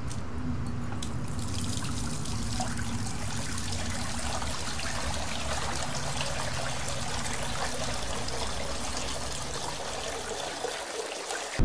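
Water running from a tap into a sink, a steady splashing hiss that starts about a second in. A low steady hum sits underneath and fades away near the end.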